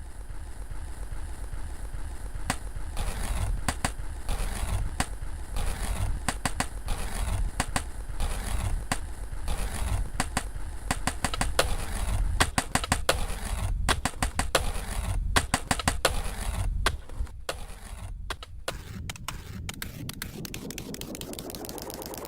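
Skateboard wheels rolling on pavement with a steady low rumble, broken by many sharp clacks of the board and trucks hitting the ground. The clacks come thick and fast for most of the stretch and thin out in the last few seconds.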